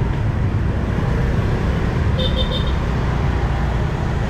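Steady low rumble of motorbike traffic while riding through a narrow lane, with three quick high beeps about two seconds in.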